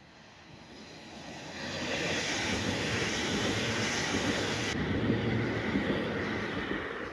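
Electric multiple unit passenger train passing close by at speed: wheels running on the rails and rushing air, growing over the first two seconds into a loud steady rush that eases slightly near the end.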